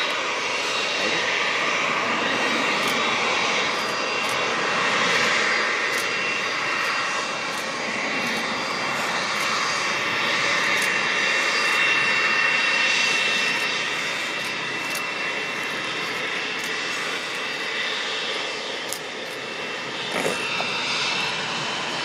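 Business jet's turbofan engines running as the jet taxis past: a steady rush of jet noise with a thin, high whine held on top.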